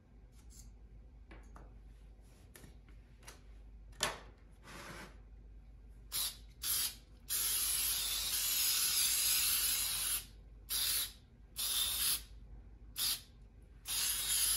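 A few light handling clicks, then an aerosol spray can spraying about six seconds in: two short bursts, one long steady spray of about three seconds, then several more short bursts.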